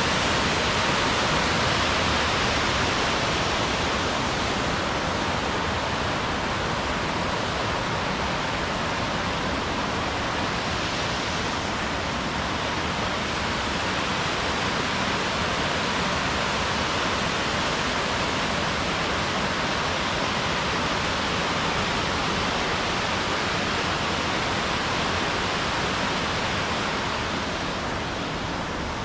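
Steady, loud rush of fast-flowing water tumbling over rocks.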